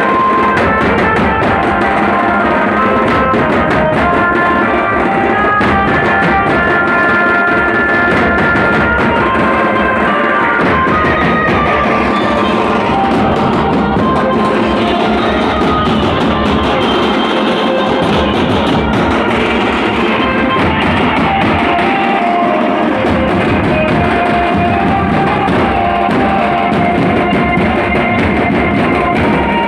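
Background music: a band with drum kit and melodic instrument lines.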